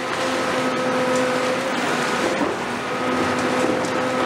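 Cat 390F excavator's Cat C18 diesel engine and hydraulics working under load, with a steady whine that drops out for about a second mid-way and comes back. Faint crunching and ticking as its demolition shear breaks into the concrete slab.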